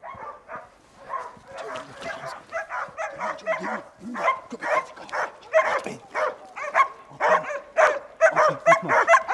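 Hunting hounds baying in full chase on a wild boar, their cries coming thicker and louder as they close in.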